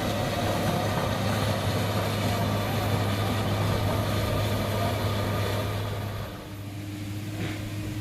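Excavator's diesel engine running steadily with a deep hum, easing back to a quieter run about six seconds in.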